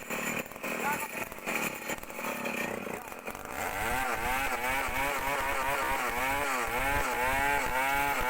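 Chainsaw cutting into a large trunk during the back cut: it comes in about three and a half seconds in and runs under load, its pitch dipping and recovering over and over as the chain bites. Before it, fainter knocking.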